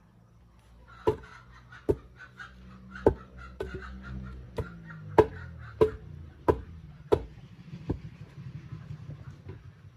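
Wooden ramming pole knocking against the stones and packed clay of a dry-stone retaining wall: about ten sharp knocks, roughly one every two-thirds of a second, stopping near the end.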